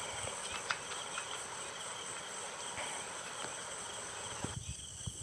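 A steady high-pitched background drone, with a few faint clicks and rustles from hands twisting and taping wire joints in a water pump's plastic terminal box.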